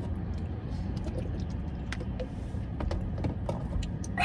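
Steady low rumble of a car's interior, with scattered small clicks and rustles of hands handling things.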